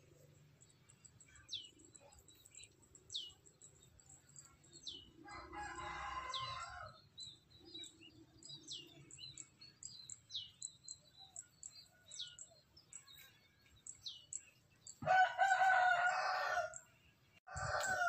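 A rooster crowing twice, faintly about five seconds in and louder about fifteen seconds in, each crow about two seconds long. Between them a small bird gives a short falling whistle every couple of seconds.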